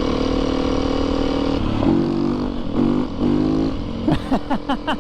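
Dual-sport dirt bike engine running steady, then revving with changing pitch as it pulls away. Near the end it gives a rapid series of rises and falls in pitch.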